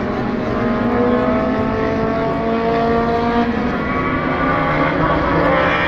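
Historic touring car racing engines running hard. The pitch climbs steadily, drops about three and a half seconds in as a gear changes, then climbs again before falling at the very end.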